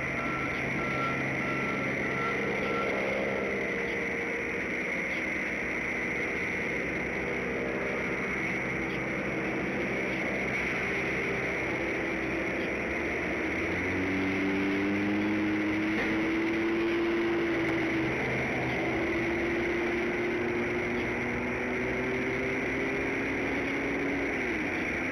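A truck's reversing alarm beeping in the first few seconds, then a heavy vehicle's engine running, its pitch climbing slowly from about halfway and dropping off near the end.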